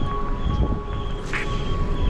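Background music with held steady tones over a heavy low end.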